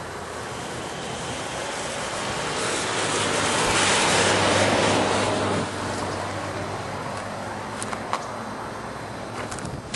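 A vehicle passing on the road, its tyre and engine noise swelling to a peak about four to five seconds in and then falling away, with a few light clicks near the end.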